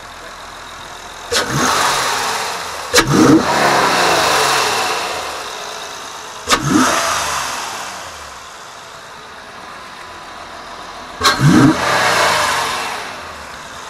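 A 2012 Honda Accord coupe's 3.5-litre V6, fitted with an aftermarket cold air intake, is revved from idle four times, a few seconds apart. Each rev rises sharply, twice as a quick double blip, then winds down slowly to idle.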